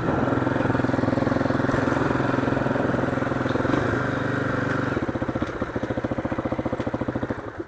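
Motorcycle engine running at steady revs, then dropping to a slower, lumpy idle with distinct firing pulses about five seconds in.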